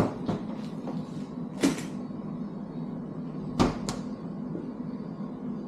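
Kitchen handling knocks over a steady low hum: a sharp knock at the start, a heavier knock with a short ring under two seconds in, and two quick knocks about three and a half seconds in. These come from a refrigerator door being shut and a spatula knocking against a skillet.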